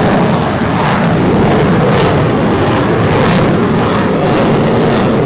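F-35A Lightning II's single jet engine, loud and steady, as the jet flies its display.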